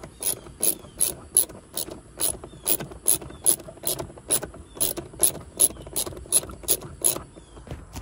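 Ratchet wrench clicking steadily, about three clicks a second, as it tightens a seat-belt mounting bolt into the floor; the clicking stops about a second before the end.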